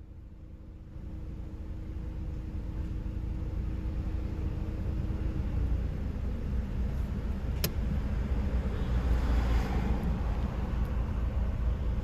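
Road traffic rumble from vehicles passing through the intersection, heard from inside a car stopped at a red light, growing steadily louder. There is a single sharp click about seven and a half seconds in.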